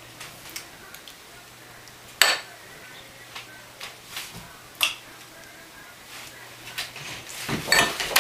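A metal spoon clinking and scraping against a ceramic bowl, in scattered light taps with two sharper clinks about two and five seconds in. Near the end, a cluster of louder knocks and shuffling at the table.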